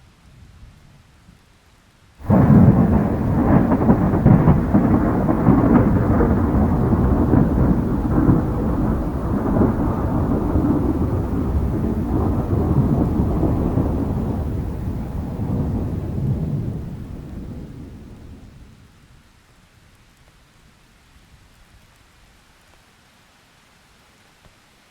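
A thunderclap breaks suddenly about two seconds in and rolls on as a long, deep rumble. It fades away over a few seconds near the end, leaving the faint hiss of rain.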